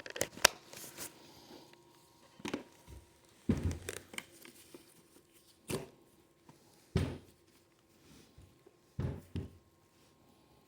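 Packaging handled by hand during an unboxing: a quick run of crinkling, tearing rustles and clicks in the first second, then a handful of separate soft knocks and thuds as box parts are moved and set down.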